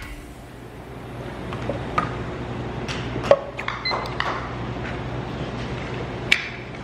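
Fork clinking and scraping on a ceramic plate, with scattered sharp clicks over a steady low room hum.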